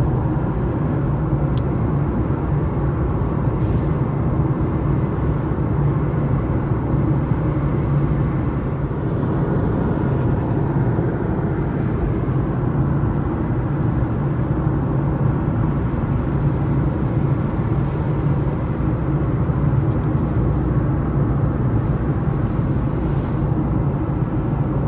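A car driving at motorway speed, heard from inside the cabin: steady road and engine noise with a strong low rumble.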